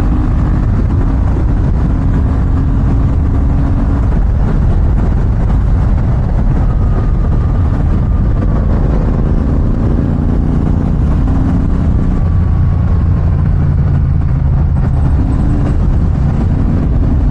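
Royal Enfield Himalayan 450's single-cylinder engine running while riding, its pitch shifting a few times as the speed changes.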